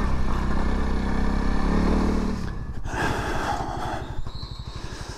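Honda CRF300 Rally's single-cylinder engine running under throttle, then eased off about two and a half seconds in. It drops to slower, separate firing beats that fade.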